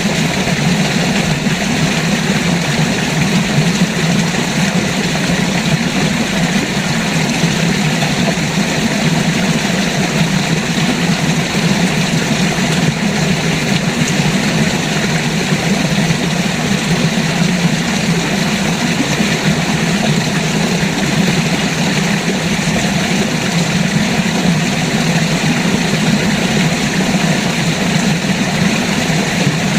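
River water rushing, a loud, steady and unbroken flow.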